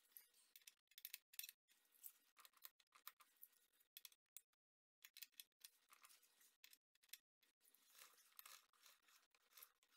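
Faint, irregular metallic clicking of a wrench working the rear-axle chain adjuster on a Kawasaki ZX-14, as the drive chain is being tensioned.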